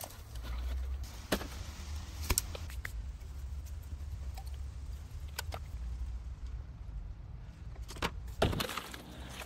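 A handful of sharp, separate clicks and knocks over a steady low rumble.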